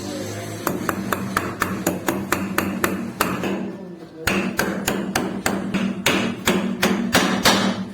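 Hammer striking a chisel in a quick, steady series of sharp blows, about four a second, with a brief pause about four seconds in.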